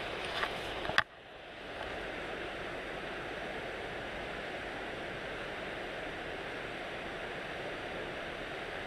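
Steady, even rushing noise outdoors, with a couple of sharp clicks about a second in, after which the noise briefly drops away and swells back.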